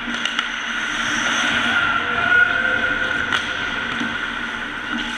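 Ice hockey play in an indoor rink: a steady, fairly loud rumble of skates on ice and arena noise, with a few sharp clicks about a third of a second in and again a little past the middle.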